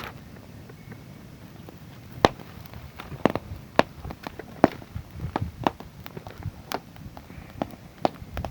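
Wood fire crackling, with sharp, irregular pops, a few of them much louder than the rest.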